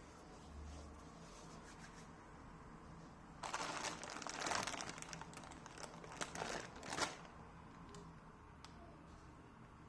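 Crinkling, rustling noise lasting about three and a half seconds, starting a few seconds in and ending with a sharp crackle.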